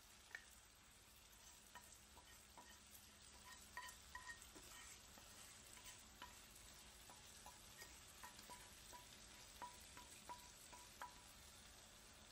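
Faint sizzling from vermicelli cooking in a pot over a gas burner, with scattered small pops and ticks.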